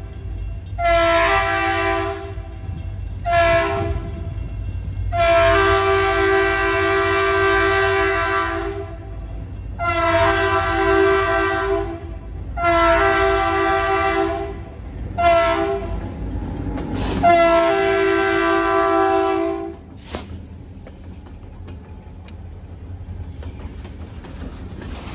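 A diesel freight locomotive's horn blows a series of long and short blasts for a grade crossing, over the low rumble of the engines. The horn stops about 20 seconds in, leaving the locomotive's engine running and the train rolling past with a clank or two.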